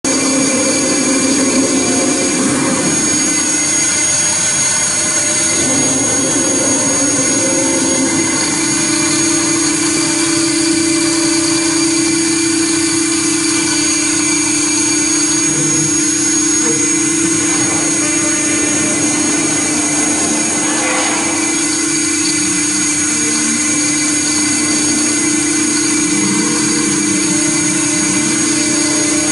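CNC router spindle running with a steady whine while its cutter mills aluminium, over a continuous noisy hiss. The spindle tone wavers for the first few seconds, then holds steady.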